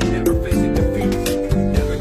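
Background music: a song with plucked guitar and a steady beat.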